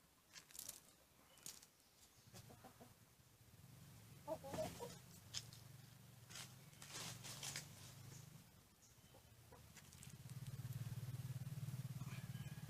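Faint clucking of a domestic chicken, a low pulsing murmur that grows stronger near the end, with a few light clicks.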